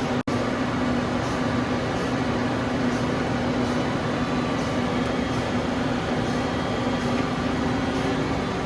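Steady mechanical hum of a 1993 Okuma Howa ACT 4 CNC lathe under power, with a steady low tone and faint regular ticks. The sound cuts out for an instant just after the start.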